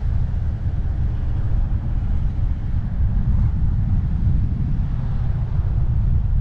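Wind buffeting the microphone of a camera mounted on the hood of a moving car: a steady, fluttering low rumble, with the car's road noise underneath.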